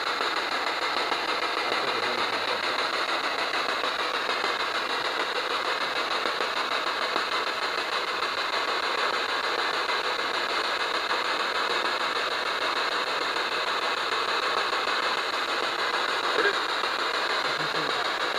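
Steady hissing noise with no rhythm or breaks.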